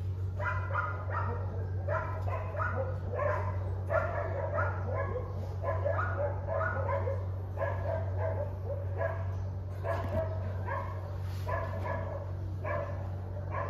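Dogs barking in a steady string of short barks, two or three a second, over a steady low hum.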